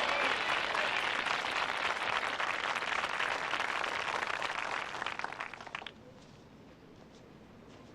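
A crowd of spectators applauding, a dense patter of clapping that thins out and stops about six seconds in.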